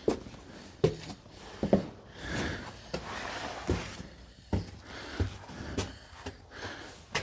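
Footsteps in a small, echoing room: irregular thuds on a hard floor about every half second to a second, with a soft rustle in the middle.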